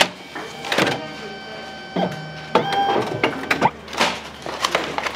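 Metal cookware clanking in a restaurant kitchen, such as a ladle striking a steel wok: sharp strikes about once a second, with ringing metallic tones between them.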